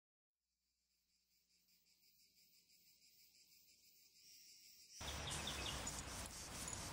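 Insects chirring in a steady pulsing rhythm, fading in faintly. About five seconds in, a louder outdoor background hiss comes in under it.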